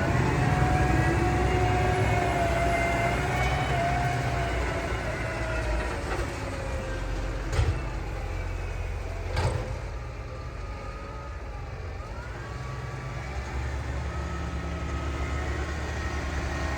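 Tractor engine running steadily with its pitch wavering, and two sharp knocks about two seconds apart near the middle.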